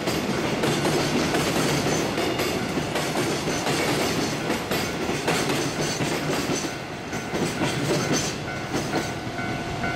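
Freight train wagons rolling past at close range, the steel wheels clacking over the rail joints in a steady stream of rumble and clicks.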